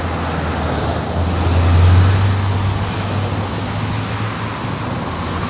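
Road traffic noise from the bridge: a steady rush of passing vehicles, with a low rumble that swells about two seconds in as a vehicle goes by and then eases off.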